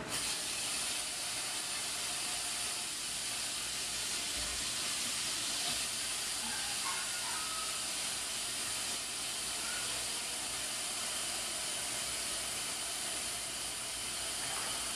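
Tap water running steadily into a large tamale steamer pot, a constant rushing hiss that starts suddenly as the faucet is turned on.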